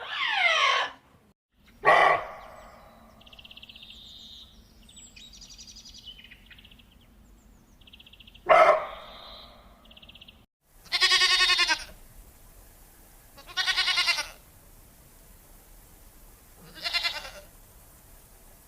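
Animal calls, one at a time, each about a second long. Between the first two calls there are short high chirps. The calls stop briefly about ten and a half seconds in, and three more calls follow.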